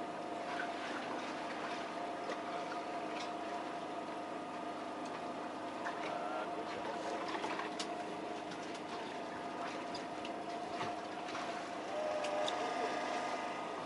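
A boat's motor humming steadily with a few steady tones under a light hiss, and scattered small clicks and taps on top.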